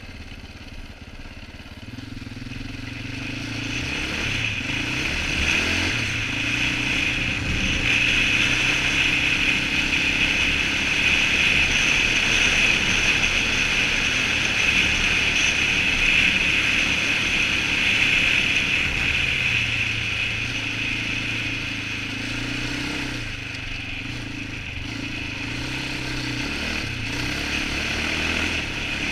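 Polaris Outlaw 525 ATV's KTM-built single-cylinder four-stroke engine under way on snow. It builds up over the first several seconds and is held hard through the middle. It eases off about twenty seconds in, then picks up again near the end.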